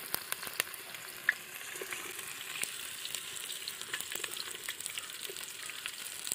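Sliced onions sizzling in hot coconut oil in a metal pan, a steady hiss with many small pops.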